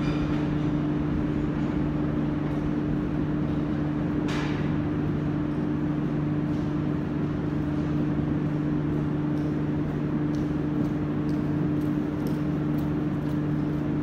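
Metro station background hum on an empty platform: a steady low drone with two constant pitches under an even rush of noise. A brief whoosh comes about four seconds in, and a few faint ticks follow later.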